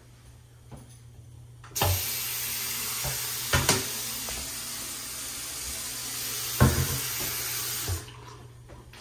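Bathroom sink faucet turned on, running water into the basin for about six seconds, then shut off near the end. A few sharp knocks sound while it runs.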